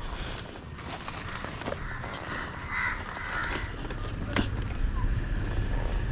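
Harsh bird calls in the middle, with a sharp knock a little later and a low rumble that builds from about four seconds in.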